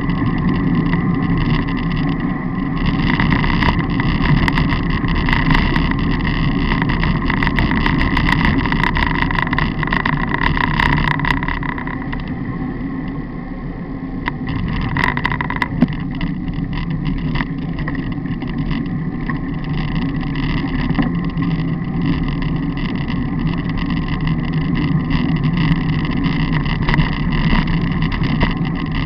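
Wind and road noise on a camera mounted on a moving bicycle's handlebar: a steady rush with many small knocks and rattles from bumps in the road, easing off briefly about halfway through.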